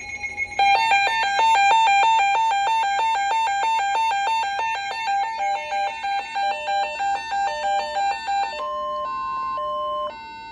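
A fast run of electronic beeps, alternating between low and high notes about four to five times a second, like a chime or alert melody. Near the end it changes to a few slower, longer notes.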